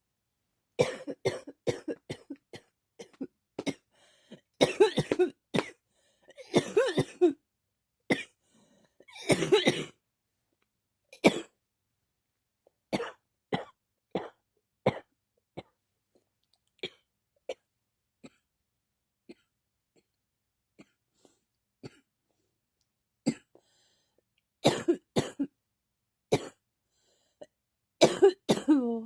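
A person coughing repeatedly: bouts of several quick coughs, then single, fainter coughs about a second apart, then more bouts of coughing near the end.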